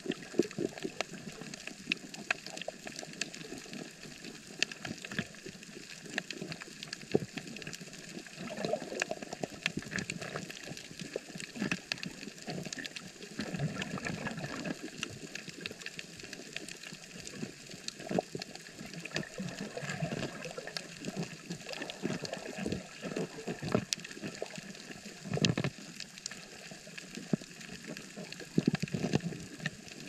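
Underwater sound on a coral reef: a steady wash of water noise, with many sharp, irregular clicks and crackles typical of a reef heard underwater. Louder muffled rushes come every few seconds.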